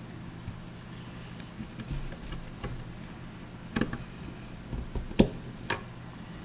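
Scattered light clicks and taps of small parts being handled while a quiver mount is fitted to a compound bow, the sharpest about four and five seconds in, over a faint steady hum.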